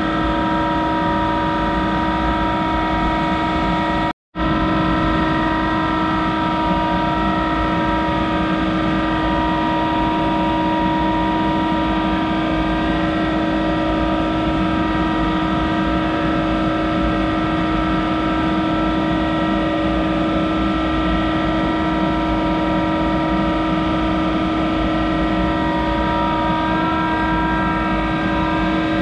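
Monarch 10EE lathe running steadily while turning an aluminium workpiece, a constant drone of several fixed whining tones. The sound cuts out for a moment about four seconds in.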